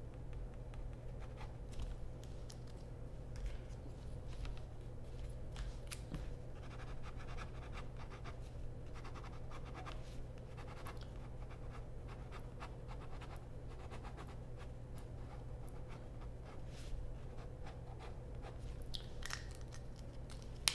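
Fine-tip ink pen scratching across paper in many short, irregular strokes as lines of an ink drawing are darkened. The strokes are faint over a steady low hum.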